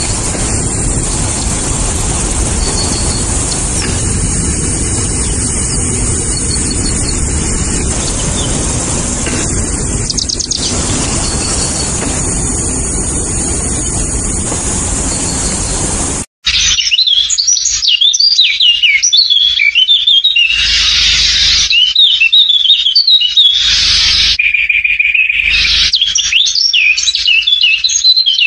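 A steady outdoor hiss and rumble with a bright high band, then an abrupt cut a little over halfway through to a busy chorus of birds chirping and calling, with many quick rising and falling notes.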